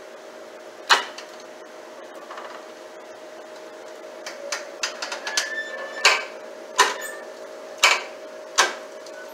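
Ricon wheelchair lift unfolding its platform on its first powered run: sharp metal clunks of the mechanism, one about a second in, then a cluster of lighter clicks and a short squeak, then a clunk about every second near the end, over a steady hum.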